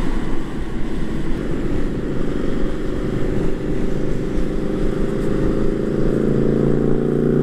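Harley-Davidson V-twin motorcycle coming up from behind, its engine note growing steadily louder and edging up in pitch, over the wind rumble and engine of the scooter being ridden.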